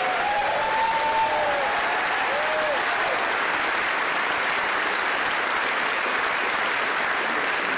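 Audience applauding steadily at a curtain call, with a few faint cheers over it in the first three seconds.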